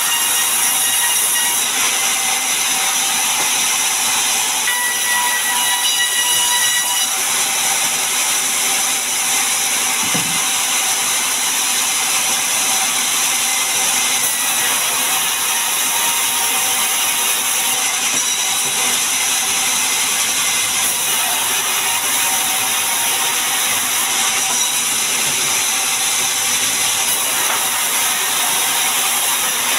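Large stationary vertical band saw ripping a long mahogany board, a steady loud hiss of the blade cutting through the wood, strongest in the high range, with the mill's machinery running underneath.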